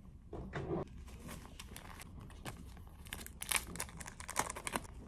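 Crinkling of a small clear plastic piece handled between the fingers: a brief louder rustle about half a second in, then a dense run of sharp crackles, thickest in the second half.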